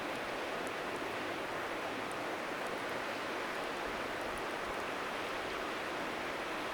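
Steady rushing of a flowing river, with a few faint, sharp crackles from a wood bonfire.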